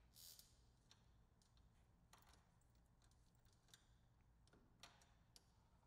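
Near silence, with a few faint clicks.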